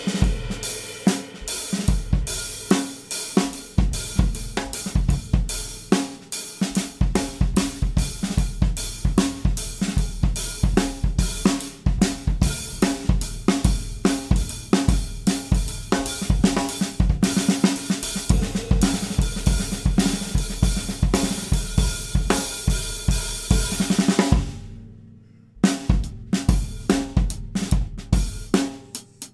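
Drum kit played busily with snare, bass drum, hi-hat and cymbals, to the fore in a duo with a nylon-string classical guitar. Near the end the playing drops away almost to nothing for about a second, then the drums come back in.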